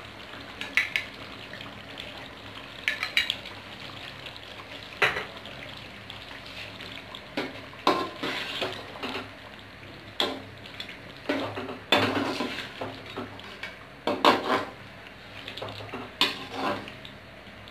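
A metal spoon scraping and clinking irregularly against a metal cooking pot while yogurt is stirred into a chicken karahi curry, over a steady sizzle from the pot.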